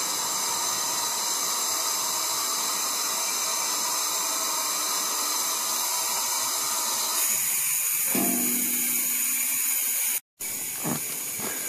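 Compressed air hissing steadily through a low-pressure regulator and hose into a collapsed 300-gallon holding tank at about 1 to 2 psi, slowly pushing the crushed walls back out. The hiss cuts out briefly about ten seconds in.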